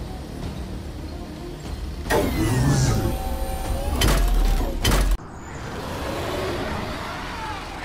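Film-style robot sound effects. A low rumble gives way, about two seconds in, to mechanical whirring with several gliding pitches and two metallic clanks. This cuts off suddenly just after five seconds, and a noisy swell builds after it.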